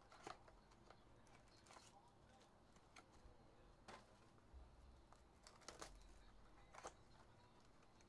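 Faint handling of sealed cardboard trading-card mini-boxes: scattered light clicks and rustles, about six in all, as the boxes are picked up and turned in the hand.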